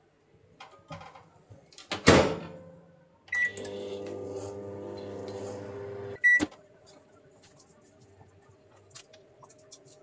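Microwave oven door shut with a knock about two seconds in, a beep, then the 1000-watt Samsung microwave running with a steady hum for about three seconds. It stops with another beep and a sharp click as the door is opened.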